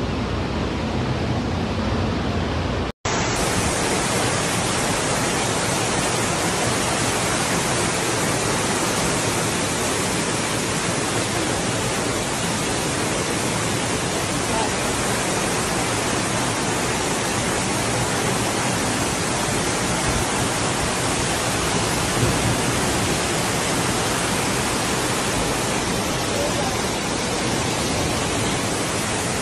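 Heavy downpour and floodwater rushing along a street: a loud, dense, steady hiss. It is preceded by a lower rumble of a bus pushing through floodwater, cut off by a brief gap about three seconds in.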